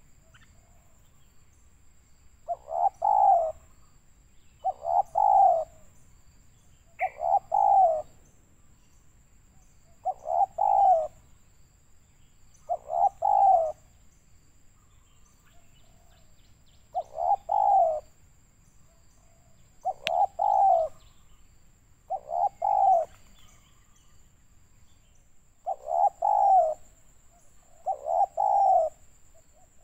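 Spotted dove cooing: a short phrase of a few coo notes, repeated about ten times at even gaps of two to three seconds.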